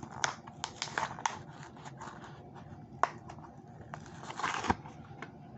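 Hot Wheels blister pack being worked open, plastic blister and cardboard backing card crackling. Scattered sharp clicks, a louder snap about three seconds in, and a crinkling rustle near the end.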